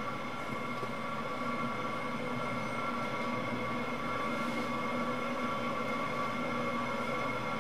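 Steady drone: several held tones over an even hiss, unchanging throughout.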